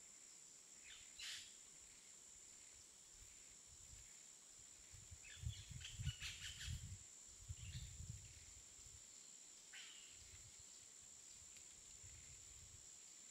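Faint outdoor nature ambience with a few short bird chirps, and some soft low rumbles near the middle.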